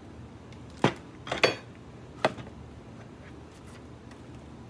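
Hard plastic clicks and knocks as an LCD monitor is taken out of its plastic case by hand: one sharp knock about a second in, a quick pair just after, and another about two seconds in.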